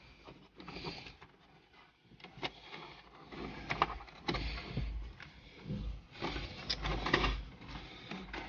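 Irregular clicks, knocks and scraping of hands working plastic car interior trim and cable, with some low bumps partway through.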